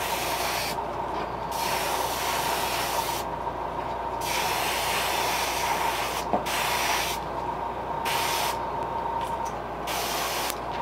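Airbrush spraying thinned glaze at about 40 psi, its air hiss starting and stopping in repeated bursts of about a second as the trigger is worked, with a steady thin whine underneath.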